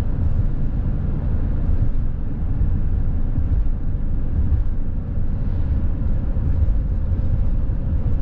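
Van driving at highway speed, heard from inside the cab: a steady low rumble of tyres on the road, engine and wind.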